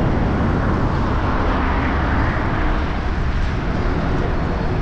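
Wind rushing over the camera microphone of a moving bicycle, a steady low rumble mixed with road and traffic noise, swelling slightly about two seconds in.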